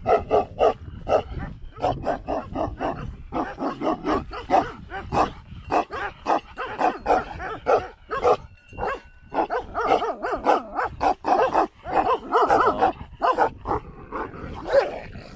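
Large white guard dogs barking in a rapid, unbroken string of barks, two or three a second. They are warning off a passing walker.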